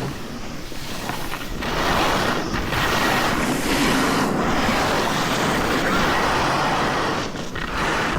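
Snowboard sliding and scraping over packed snow at speed, a steady rushing hiss that eases off briefly a few times, with wind blowing over the microphone.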